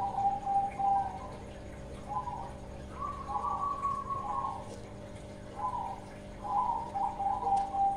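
Young Bangkok-line zebra dove (perkutut) cooing as it comes into full song: about four rippling coo phrases with short pauses between them, one near the middle pitched a little higher.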